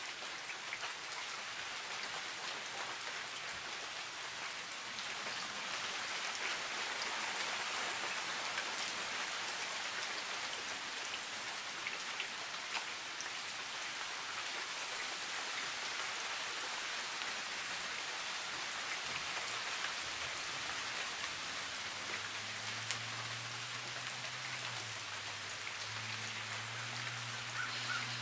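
Steady rain falling on foliage and ground, a dense even patter. About two-thirds of the way through, a low steady hum joins in under the rain.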